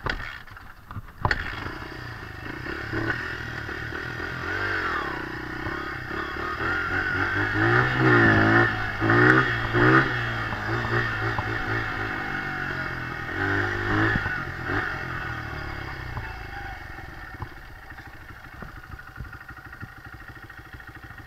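Dirt bike engine running as it is ridden along a trail, its revs rising and falling with the throttle. The revs swing hardest about eight to ten seconds in and again around fourteen seconds, then ease to a lower, quieter run. Sharp knocks of the handlebar camera being jostled come right at the start and about a second in.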